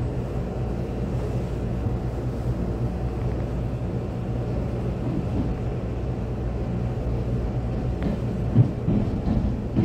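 Taiwan Railway EMU800-series electric multiple unit running between stations, heard inside the carriage: a steady low rumble of the wheels on the rails under a constant motor hum, with a few knocks about eight seconds in.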